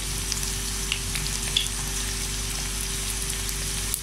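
Marinated chicken pieces deep-frying in hot oil in a karahi: a steady sizzle with a few small pops.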